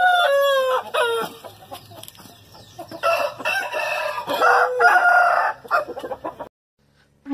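Rooster crowing and clucking: two long falling crows at the start, then more calls, cutting off suddenly about six and a half seconds in.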